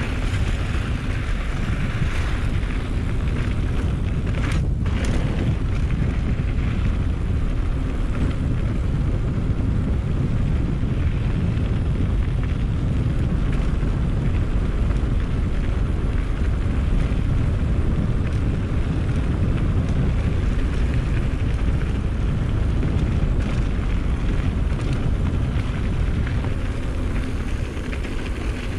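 Wind buffeting the microphone of a camera on a moving mountain bike: a steady, loud, low rumble.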